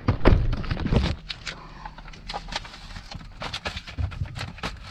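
Handling noise of a phone held close to its microphone: heavy low knocks and rubbing for about the first second, then a run of small irregular clicks and crackles.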